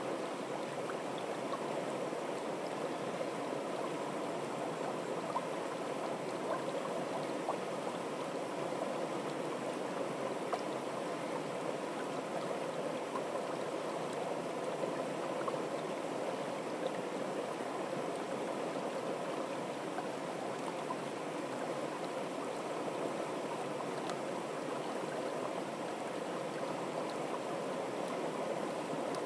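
Small, fast-flowing stream rushing steadily through a shallow, rippling channel: a continuous burble with scattered small splashes.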